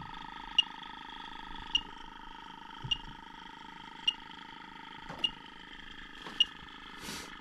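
Electronic refrigerant leak detector ticking slowly and evenly, a short high beep a little under once a second, over a steady whine. The slow, even rate means no refrigerant is being picked up. A brief rustle of handling comes near the end.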